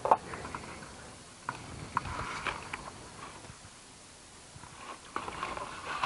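Handling noises: a sharp knock at the start, two more short knocks about a second and a half and two seconds in, with scraping and rustling around them and again near the end.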